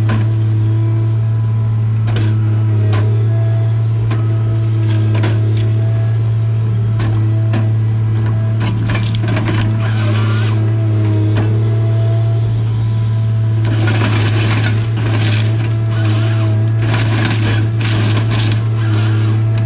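Tigercat 855C harvester running steadily with a constant low engine hum and a whine from its hydraulics. The LogMax 7000 processing head handles hardwood stems, with frequent sharp cracks and splintering of wood. In the last third there is a longer stretch of dense cracking and crunching as stems are fed through and cut.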